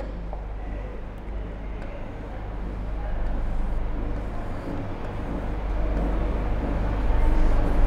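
Low rumbling noise like road traffic or a vehicle going by, growing steadily louder over the last few seconds.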